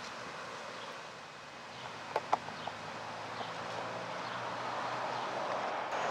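Outdoor background hiss that slowly grows louder, with a few short chirps about two seconds in.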